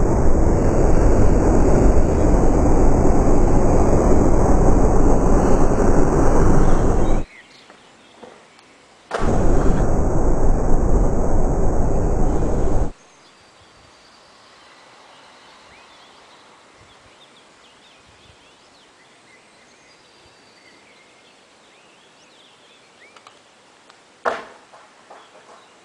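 Heavy wind rumble on a camera microphone that cuts off abruptly twice, then a low outdoor hush with faint bird chirps and a single sharp knock near the end.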